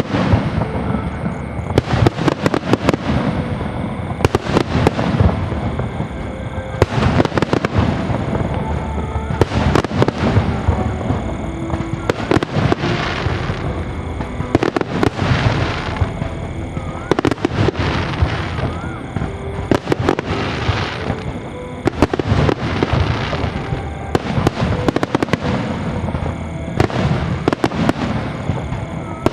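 Fireworks display: a continuous barrage of overlapping shell bursts and crackling, several bangs a second.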